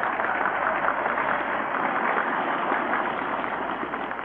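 A large crowd applauding steadily, fading near the end, heard through a muffled, narrow-sounding old recording.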